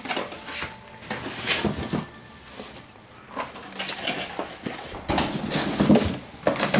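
Toys and packing being rummaged through and handled in a cardboard box: irregular rustling with light plastic knocks and clatter.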